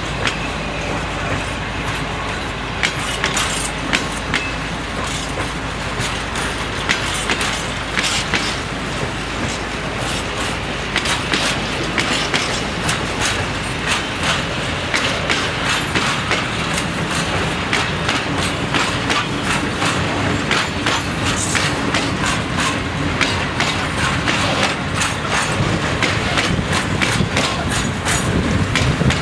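Freight train rolling past, its wagon wheels clicking steadily and rapidly over the rail joints over a continuous rumble.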